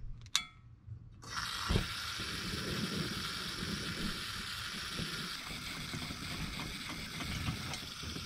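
A pump-pressurized dual-fuel camp stove being lit: a short metallic click, then about a second in the burner catches with a sudden steady hiss and a thump. It keeps hissing evenly on a high flame, which the cook finds too strong.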